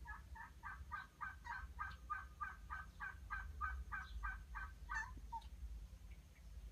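Kitten mewing over and over in quick, short, high mews, about three a second, stopping a little after five seconds in with one lower mew: pleading meows.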